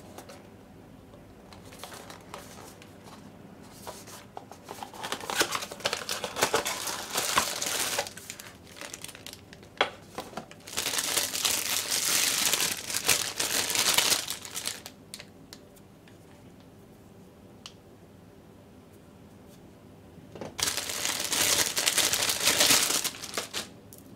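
Clear plastic bag crinkling and rustling as it is handled and opened by hand to take out a silicone egg mold, in three bouts of a few seconds each with quiet between.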